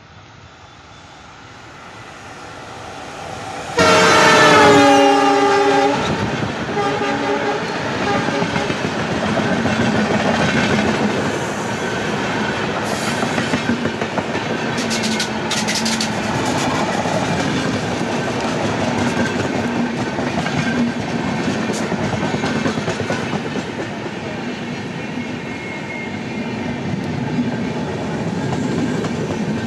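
Twin WDM3A diesel-electric locomotives come closer, then sound a loud multi-tone horn about four seconds in; its pitch drops slightly over the two seconds it sounds as they pass. After that the train's coaches rumble steadily past, their wheels clattering over the rail joints.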